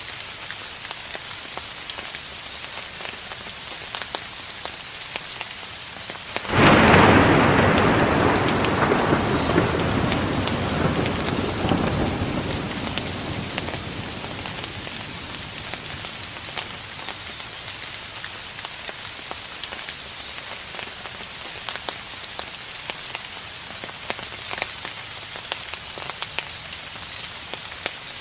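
Steady rain falling with patters of drops, and one thunderclap about six seconds in that breaks suddenly and rumbles away over several seconds.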